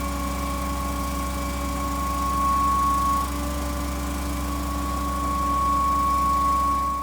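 Putzmeister 47-metre truck-mounted concrete pump running: a steady low engine drone with a steady high whine over it, swelling slightly a couple of times.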